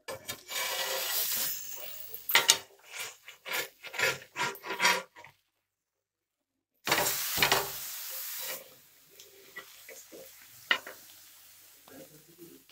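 Metal spatula scraping and knocking on a blackened iron griddle while leaf-wrapped fish parcels are turned, with hissing from the pan. The sound breaks off completely for a moment in the middle, then the scraping resumes and trails into light clicks.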